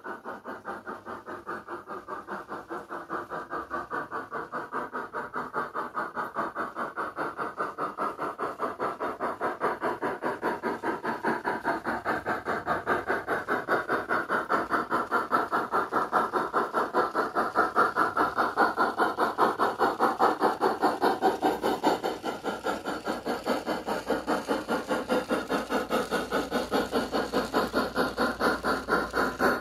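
MyLocosound sound card in a Piko BR 24 G-scale steam locomotive model playing steam-exhaust chuffing, a steady rhythm of about three chuffs a second that grows louder as the locomotive approaches.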